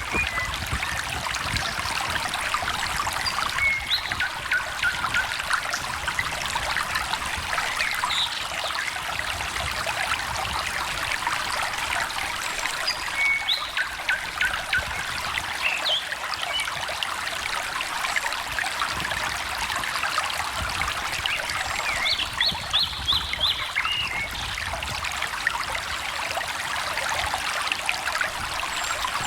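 A stream trickling and splashing steadily, with birds calling now and then over it; a quick run of high repeated notes about 22 seconds in.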